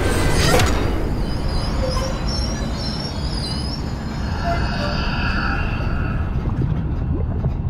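Roller coaster train rumbling along its track, with wavering high wheel squeal over the rumble. A loud burst of noise comes about half a second in.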